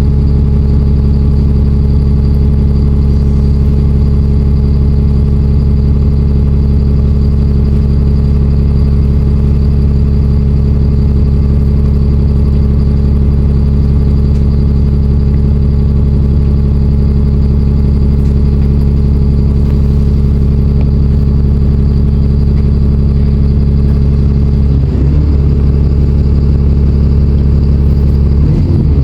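Alexander Dennis Enviro 400 double-decker bus's diesel engine running steadily at idle, its note holding one pitch until it starts to waver and shift near the end.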